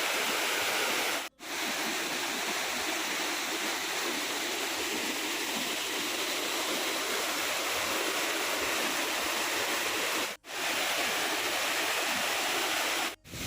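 Waterfall: a steady rush of falling water. It is broken three times by brief, sudden dropouts where clips are joined.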